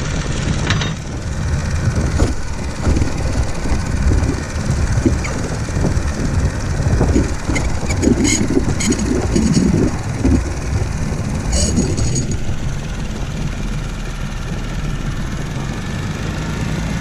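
Wind buffeting the microphone, with water rushing along the hull of a catboat under sail. A few sharp clicks come a little past halfway through and again a few seconds later.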